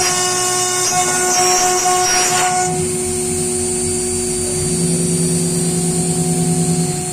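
CNC wood router running, its spindle giving a steady high whine over a low hum as it cuts wood. About a second in there is a rougher cutting noise lasting a second or two.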